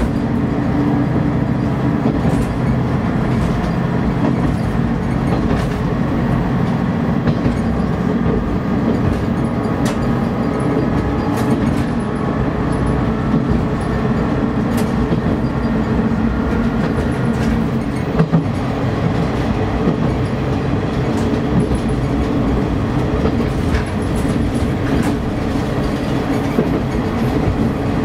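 KiHa 31 diesel railcar under way: its diesel engine drones steadily while the wheels click now and then over rail joints.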